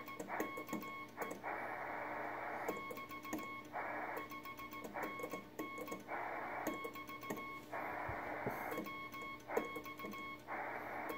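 Morse code sent by hand on a telegraph key: quick irregular clicks of the key contacts, over a steady tone, with bursts of radio receiver hiss every second or two in the gaps between keying.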